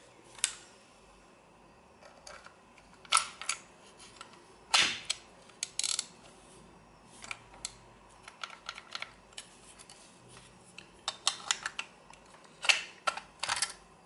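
Irregular sharp plastic and metal clicks of a shopping-cart coin lock being worked by hand: its latch snapping as the lock is released with a key inserted in the slot.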